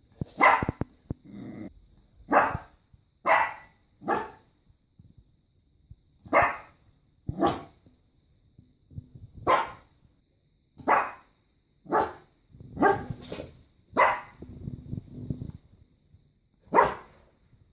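Puppy barking in sharp single barks at irregular intervals, about a dozen in all, sometimes two in quick succession.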